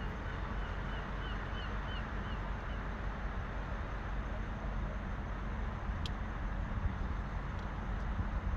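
Steady outdoor rumble with wind buffeting the microphone. A small bird repeats a short, high chirp about twice a second during the first two seconds, and there is one sharp click about six seconds in.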